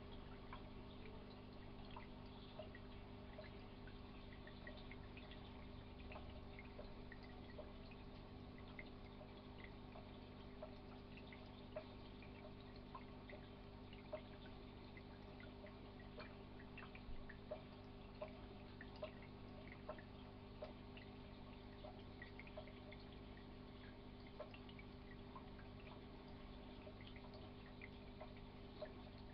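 Faint aquarium water sounds: irregular small drips and plinks of water, with a few louder ones in the middle, over a steady low hum from the tank's equipment.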